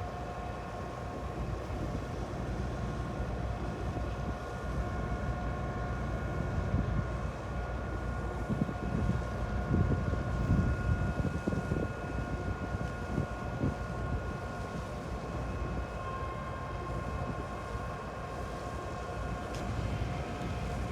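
Ferry Kogane Maru's engines and shipboard machinery running with a steady hum of several held tones over a low rumble, the rumble growing louder and more uneven around the middle.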